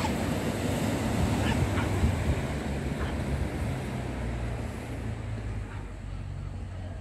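Wind buffeting the microphone over the wash of small waves breaking on the beach. The gusting eases a little over the last few seconds.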